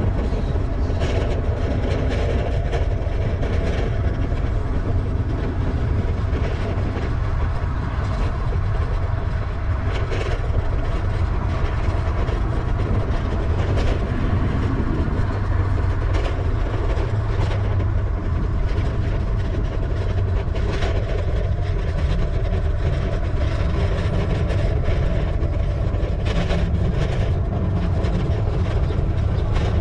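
Steady wind rumble on the microphone of a bicycle-mounted action camera during the ride, with tyre and path noise and scattered small clicks and knocks from bumps.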